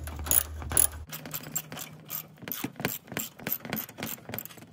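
Hand socket ratchet clicking in quick repeated strokes, about four or five clicks a second, as the bolts of a sway bar bushing bracket are run in. A low hum cuts off about a second in.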